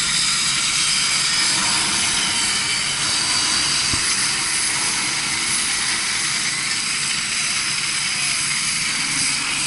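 Gas cutting torch hissing steadily as it cuts through metal.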